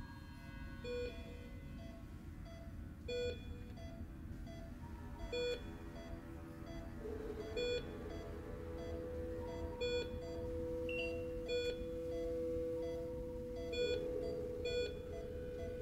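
Bedside patient monitor beeping about every two seconds, each beep short, over a low steady hum. About halfway through, a steady held tone comes in beneath the beeps.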